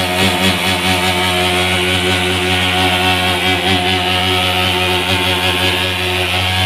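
Portable thermal fogging machine's pulse-jet engine running with a loud, steady buzz while it blows insecticide fog out of its long tube.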